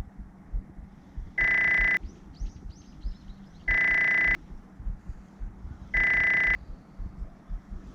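An electronic beeper sounds three long, even beeps, evenly spaced a little over two seconds apart. Faint high chirps come between the first two beeps.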